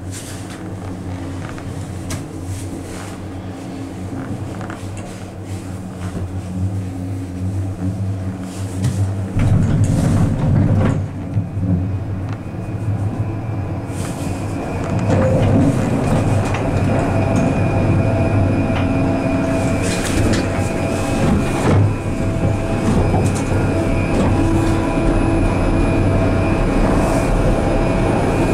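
Detachable gondola ride heard from inside an eight-seat Doppelmayr cabin. At first there is a steady hum of travel along the cable. About nine seconds in a louder rumble starts as the cabin enters the station. From about fifteen seconds it runs on with a loud, steady whirring of the station's wheel conveyor and drive machinery.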